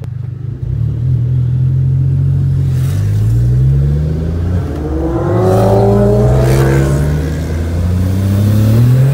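Turbocharged 1.0 TSI three-cylinder engine of a Stage 3 single-turbo VW up!, heard from inside the cabin under hard acceleration. The revs climb and drop back at each of several quick upshifts.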